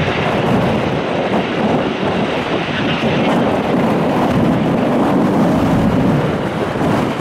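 CF-18 Hornet's twin F404 jet engines running as the jet flies low overhead on approach to land with its landing gear down: steady, loud jet noise.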